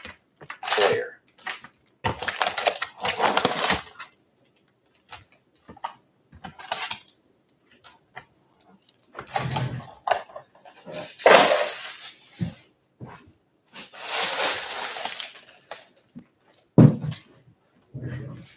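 Foil wrappers of baseball card packs crinkling and rustling in irregular bursts as the packs are handled, with a couple of dull knocks near the end.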